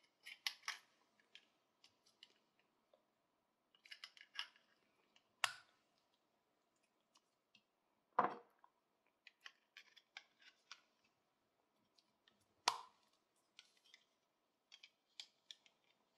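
Brass parts of a pair of antique binoculars being fitted and handled: scattered light clicks and small metallic taps as the hinge bridge goes onto a leather-covered barrel, with three sharper knocks, about five, eight and twelve and a half seconds in.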